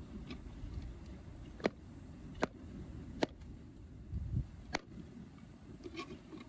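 Knife blade clicking against the shell of a large freshwater mussel as it is pried open: four sharp clicks a second or so apart, over low rustling.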